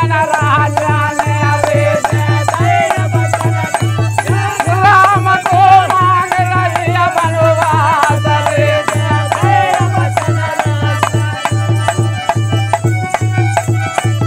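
Men singing a devotional folk bhajan in chorus, over a dholak playing a steady beat and hand clapping. The voices drop out about ten seconds in, leaving the dholak and clapping.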